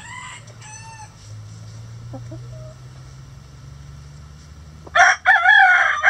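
Rooster crowing loudly, starting near the end, after a few soft clucks from hens.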